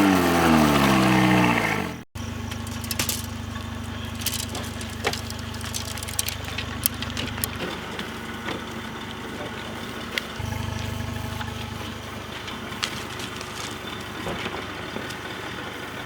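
A loud falling sweep of tones that cuts off abruptly about two seconds in, followed by an engine running steadily with scattered light clicks.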